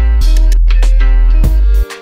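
Lo-fi background music with a steady beat, heavy bass and plucked melody notes; the bass drops out briefly near the end.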